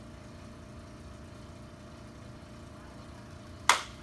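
A single sharp crack of a spinal joint being adjusted by a chiropractor, near the end, over a steady low hum.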